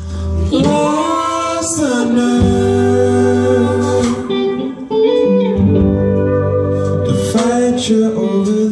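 Live band music: a man singing over his own electric guitar, with steady low bass notes underneath. The voice comes in about half a second in.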